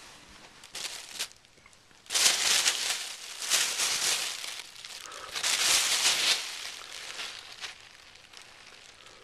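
Thin plastic bag crinkling and rustling as a kitten plays in it. The crinkling comes in loud bursts from about two to six and a half seconds in, with softer rustles around them.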